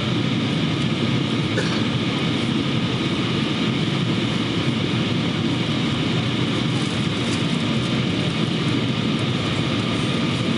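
Steady cabin roar inside a Boeing 777-200 on descent for landing: engine and airflow noise heard from a window seat, with a few faint steady tones in it.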